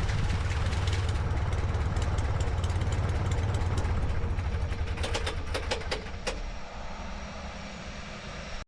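Aeronca Chief light plane's engine running at low power, a steady drone that eases off over the last few seconds, with a quick run of sharp clicks about five to six seconds in.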